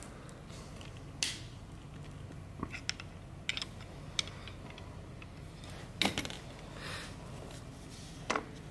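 Scattered small metallic clicks and knocks from an antique engine magneto being handled and adjusted on a workbench, the loudest about six seconds in, over a low steady hum.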